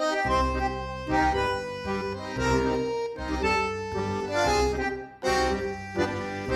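Instrumental background music: held melody notes over a pulsing bass line, dipping briefly about five seconds in.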